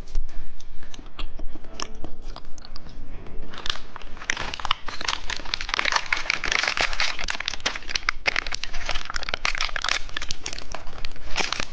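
Plastic candy wrapper crinkling and rustling as it is handled, with a dense stretch of crackling through the middle.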